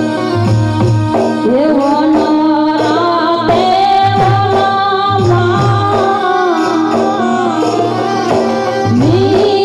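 Woman singing a Gujarati folk song into a microphone, gliding into and holding long notes, over a steady instrumental drone and a regular drum beat about once a second.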